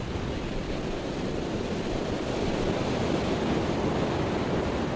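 Ocean surf washing on the shore: a steady rush of waves that swells slightly in the middle.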